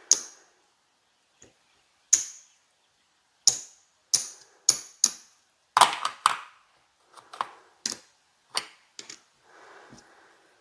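Casino chips clacking as they are picked up, stacked and set down on a felt craps layout: about a dozen sharp, irregular clicks, with a soft sliding sound near the end.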